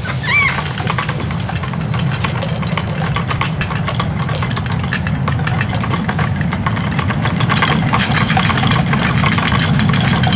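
A steady deep rumble shakes the room, setting a porcelain teacup rattling and clattering on its saucer in quick small clicks that build from about two seconds in. A blue-and-yellow macaw gives one short squawk right at the start.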